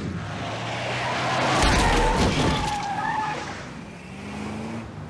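Box truck speeding off, its engine revving and tyres squealing on the asphalt; the engine note climbs near the end.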